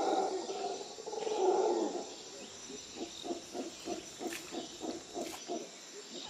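Animal-like growling for about the first two seconds, then a run of short, evenly spaced grunting calls, about three a second.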